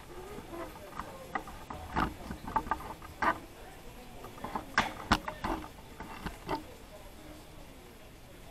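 Kitchen handling sounds during the preparation of whole catfish: irregular light knocks, clicks and rustles. They come in two clusters, one starting about a second in and one around five seconds in, and grow quieter near the end.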